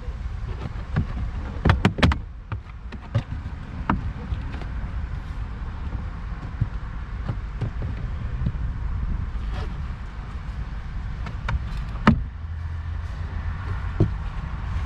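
Scattered clicks and knocks of plastic car interior trim being pulled back and handled, the loudest about two, four and twelve seconds in, over a low steady rumble.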